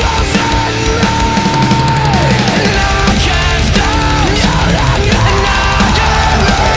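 Loud heavy-metal style music with distorted guitars and drums.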